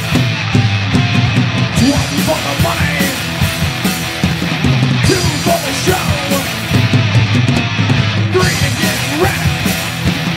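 Rock band playing live: distorted electric guitars, bass and a drum kit with cymbals, in a heavy punk-metal style.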